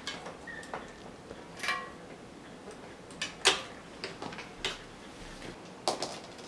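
Bicycle rear wheel being taken out and a hub-motor wheel set into the frame's dropouts: scattered light metallic clicks and knocks of axle, chain and frame, the loudest about three and a half seconds in and another just before the end.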